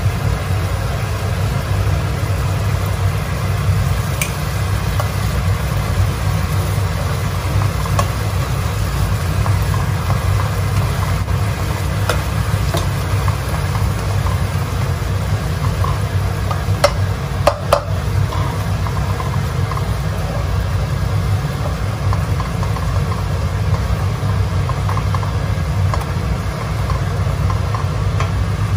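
A spatula scraping and tapping in a wok while salted egg yolk is mashed into a bubbling cream sauce, with a few sharper clicks, most of them about seventeen seconds in. A steady low rumble runs underneath throughout and is the loudest part.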